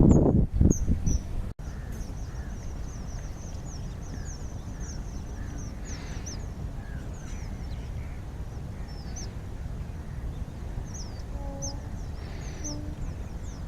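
Wild birds calling: many short, high chirps repeating throughout, with a few lower calls, over a steady low rumble. Loud low buffeting noise in the first second or so stops abruptly.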